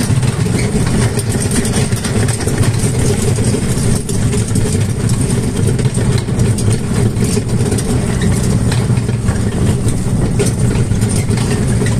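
Tractor engine running with a steady, even, low drone.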